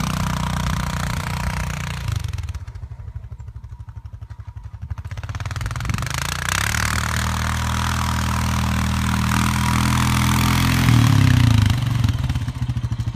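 Honda Foreman 450 ATV's single-cylinder engine working hard pushing a snow plow. It drops to a slow idle with separate beats for a few seconds, then pulls hard again, loudest for a moment past the middle, and eases off near the end.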